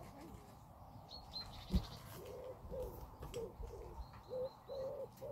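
A pigeon cooing, a run of short, low, soft notes repeated from about two seconds in. A single knock just before it, and a few faint high chirps from a small bird.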